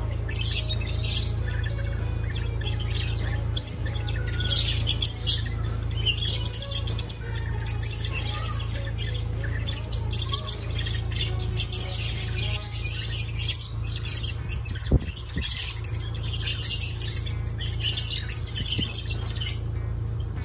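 Lovebirds chattering in irregular bursts of rapid high chirps and squawks over a steady low hum.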